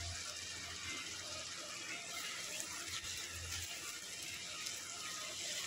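Seviyan cooking in a non-stick kadhai, a steady soft sizzle, while a silicone spatula stirs it.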